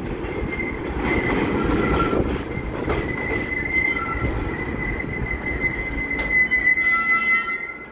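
R46 subway train braking into an elevated station: a low rumble of the cars on the rails with a steady high-pitched squeal as it slows. The squeal grows louder for the last couple of seconds, then the sound drops away sharply near the end as the train stops.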